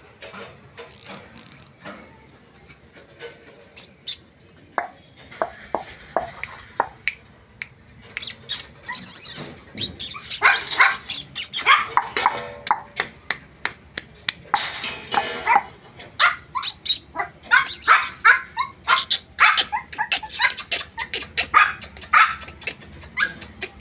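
Puppy barking in high, short yips: scattered barks at first, then rapid strings of barks from about eight seconds in.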